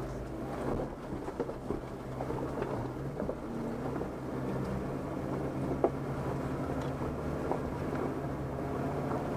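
Off-road 4x4's engine running steadily at low revs as it crawls slowly uphill over a rutted dirt trail, with scattered knocks and crunches from the rough ground.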